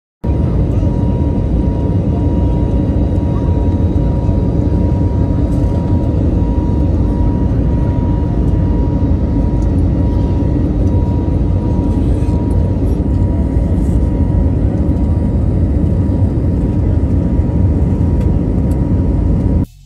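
Airbus A320 jet engines at climb power heard from inside the cabin just after takeoff: a loud, steady rumble with a steady high whine over it. It starts abruptly just after the beginning and cuts off suddenly near the end.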